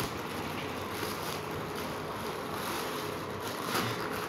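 Thin plastic packaging crinkling and rustling as hands unwrap a folded dress from its clear wrap and mailer bag, over a steady low hiss.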